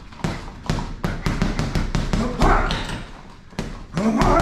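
Boxing gloves striking a heavy punching bag: a quick run of about a dozen light volume punches, with louder heavy shots about two and a half seconds in and near the end. The harder shots come with forceful voiced exhales.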